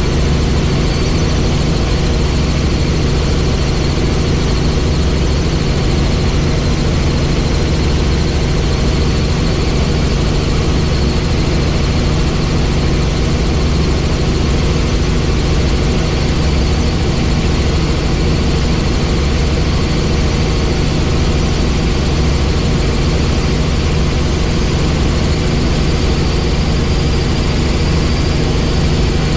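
Helicopter in cruising flight heard from inside the cabin: a steady, loud mix of engine and rotor noise with a constant low hum and a faint thin high whine, unchanging throughout.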